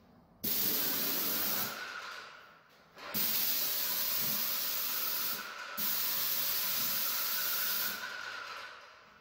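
Graco 395 airless paint sprayer's gun hissing as paint is sprayed in trigger bursts: one burst of about a second just after the start, then a longer one from about three seconds in that dips briefly near the middle and stops about eight seconds in.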